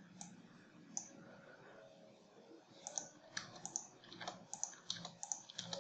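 Faint computer keyboard typing and mouse clicks: a few single clicks at first, then a quick irregular run of key presses in the second half.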